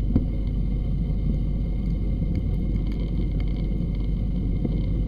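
Gold suction dredge heard underwater: a steady low rumble and hum from the dredge's running engine and pump carried through the water, with scattered small clicks of gravel rattling into the suction nozzle.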